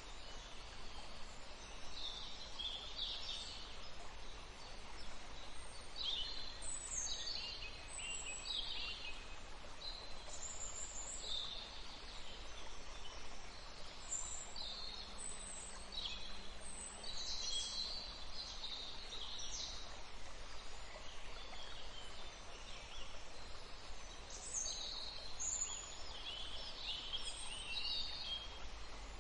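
Wild birds singing: a string of short chirps and trills from several birds, coming every second or two over a steady background hiss.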